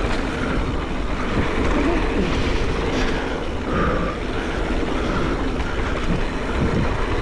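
Mountain bike descending a dirt trail at speed: a steady rumble of tyres over the ground and wind on the microphone, with light clatter from the bike.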